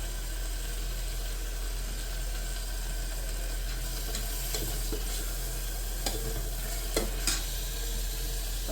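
Tomato-onion masala sizzling in an electric kettle as it is stirred, with a few light clicks about four to seven seconds in.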